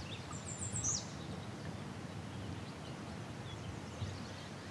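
A songbird gives a quick run of high, falling chirps about half a second in, over a steady low outdoor background noise.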